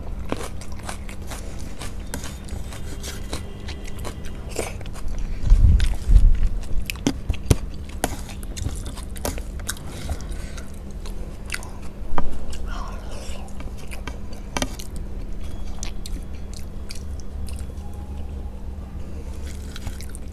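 Close-miked eating sounds of a person chewing and biting a rice-and-curry meal, with many small clicks. Two louder low thumps come about six and twelve seconds in, over a steady low hum.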